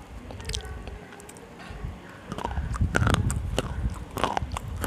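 Slate pencils being bitten and crunched right at a clip-on microphone held to the mouth: a run of sharp, crisp snaps and grinding chews. The crunches come thicker and louder from about two seconds in.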